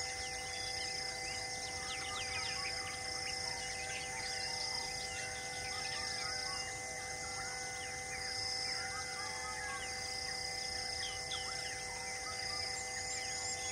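Wild forest ambience: many birds chirping and calling over a steady insect hum. A high call pulses on and off about once a second throughout.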